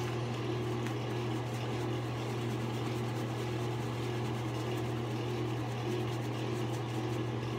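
Steady low machine hum, with the soft swishing of a shaving brush working lather over the face.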